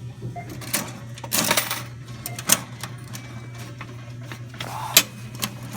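Coin-operated vending machine mechanism clicking and rattling as a quarter is fed in and the handle worked. There are sharp clicks, a longer rattle about a second and a half in, and a loud click near the end. The machine swallows the quarter without vending.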